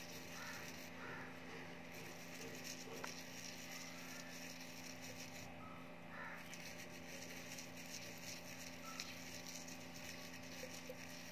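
Quiet room tone with a steady low electrical hum, and a few faint small clicks.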